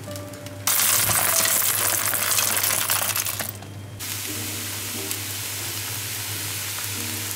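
Thin pancake batter sizzling loudly as it hits a hot oiled pan, starting about a second in and dying down after a few seconds. Then the thin pancake frying with a steady, quieter sizzle.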